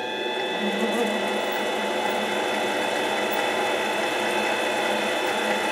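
Mini lathe's motor running with an end mill spinning in the chuck: a steady motor whine with several held tones, coming up to speed in the first second.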